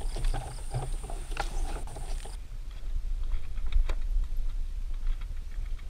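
Footsteps on the loose bamboo poles of a makeshift footbridge, the poles knocking and clacking irregularly underfoot, over a steady low rumble.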